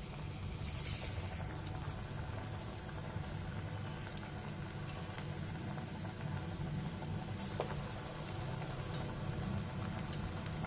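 Cassava vadai frying in hot oil in a kadai, the oil bubbling and sizzling steadily, with a few brief clicks along the way.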